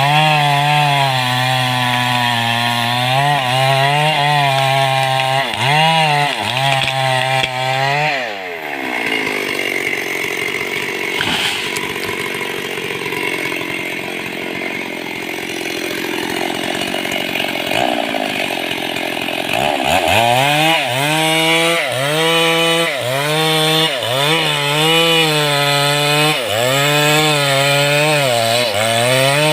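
Stihl two-stroke chainsaw cutting into mahogany, its engine note rising and dipping as the chain loads in the wood. For about ten seconds in the middle the steady engine note drops away, with a single sharp knock, before the saw picks up and cuts again.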